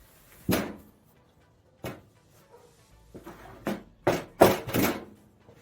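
Several separate knocks and clunks of objects being handled, the loudest coming close together near the end, over background music.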